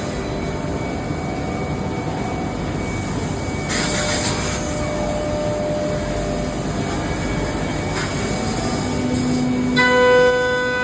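5-axis CNC machine running with a steady mechanical noise, two short hissing surges about four and eight seconds in, and a steady high whine setting in near the end.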